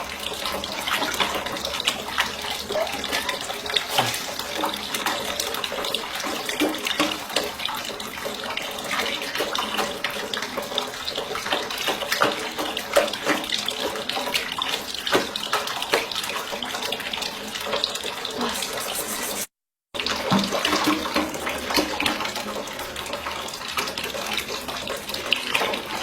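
Kitchen tap running steadily into a sink, the water splashing, with scattered small knocks. The sound cuts out for about half a second roughly three quarters of the way through.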